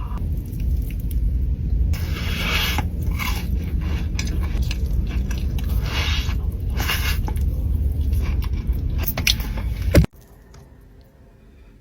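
Close-miked eating: bites and chewing with several crunchy bites, over a steady low rumble. The sound cuts off abruptly about ten seconds in and turns much quieter.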